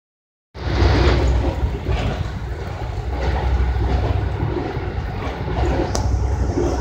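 Interior ride noise of an Amtrak passenger car at speed: a steady low rumble of wheels on rail, starting about half a second in, with a single sharp click near the end.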